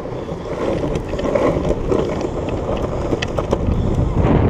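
Longboard wheels rolling over a concrete promenade: a steady, even rumble with a few light clicks.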